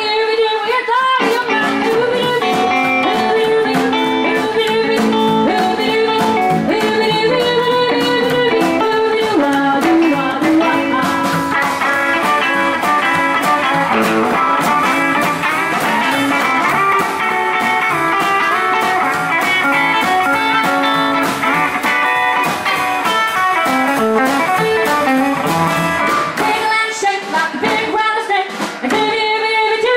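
Live rockabilly band playing: drum kit, upright double bass and guitars keeping a steady beat.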